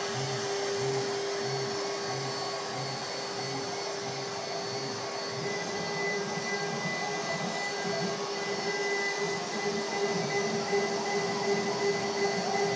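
CNC router milling a wooden board: the spindle whines steadily over the rushing noise of the dust extraction drawing chips through the brush boot. A low pulsing about twice a second runs through the first half, and a second, higher whine joins about halfway.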